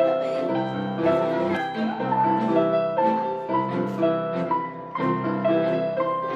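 Piano music: a melody of single notes that climbs step by step over repeated lower chords.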